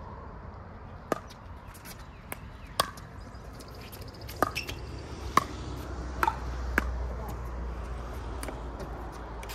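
Pickleball rally: paddles striking the hollow plastic ball, with the ball bouncing on the hard court. It makes a series of sharp pops about a second apart, with fainter ticks in between.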